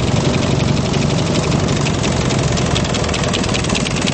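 Chang Jiang sidecar motorcycle's flat-twin engine running at a steady, unchanging speed, with a fast, even ticking over the engine note.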